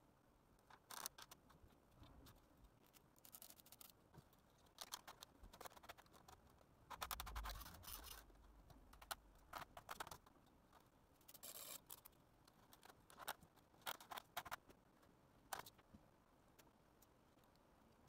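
Faint, scattered handling noises: fingers scratching, tapping and pressing on foam board and a cutting mat, as short clicks and scrapes at irregular intervals. A louder bump with a cluster of scratches comes about seven seconds in.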